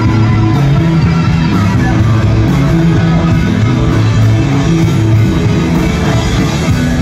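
Live rock band playing loud and steady: electric guitars over bass and a drum kit, in an instrumental stretch without singing.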